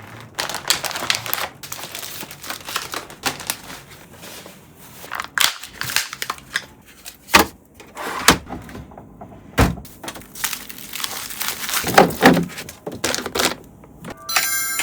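Crinkling plastic packaging and bags, with frequent sharp clicks and knocks as grocery items and containers are handled and set down while being put away.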